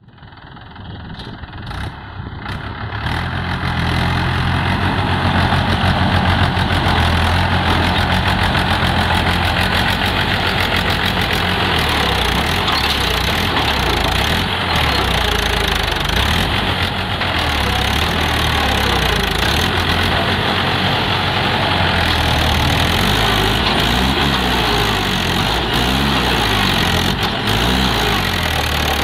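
Mahindra tractor's diesel engine running steadily. It grows louder over the first few seconds, and its speed rises and falls slightly near the end.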